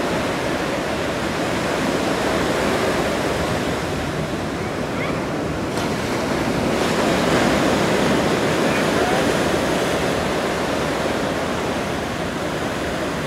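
Steady wash of sea waves, with wind on the microphone.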